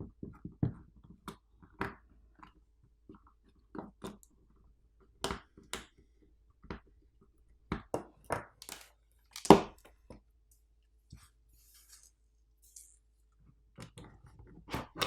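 Plastic power bank housing being forced open with tools: scattered small clicks and scrapes, then a run of sharp plastic cracks and snaps, the loudest about two-thirds of the way through.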